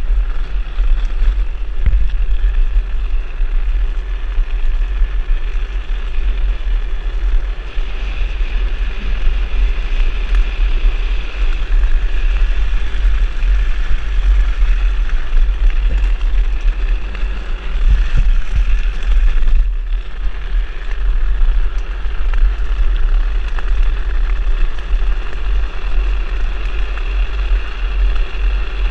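Wind buffeting the rider's camera microphone over the steady rolling noise of a drift trike's wheels on asphalt at speed downhill.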